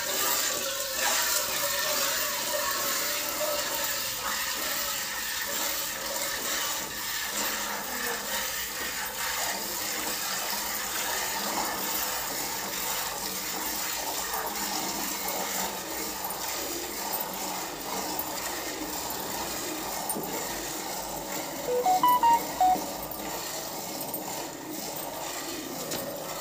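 Hand-milking a water buffalo: streams of milk squirting into a steel bucket make a steady hissing spray. Near the end comes a short cluster of loud ringing clinks.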